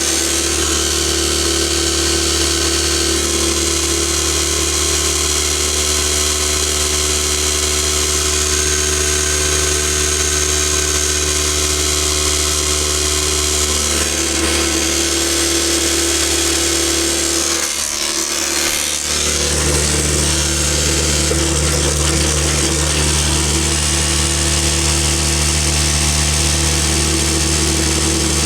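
Electric Tornado F2 drywasher running steadily during its clean-out, a constant motor hum with rattle and hiss above it. The sound dips briefly about 18 seconds in, then picks back up.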